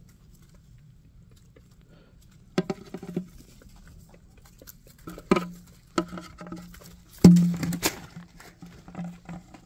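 Domestic goose pecking at a hanging plastic bucket treat toy: a series of sharp knocks, each followed by a short low ring, the loudest about seven seconds in. Wing flaps come near the end.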